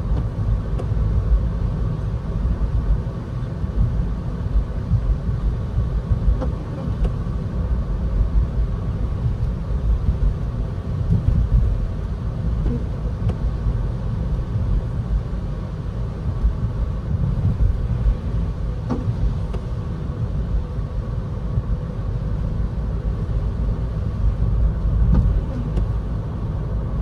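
Steady low rumble of a car in motion heard from inside the cabin: engine and tyres on a wet road.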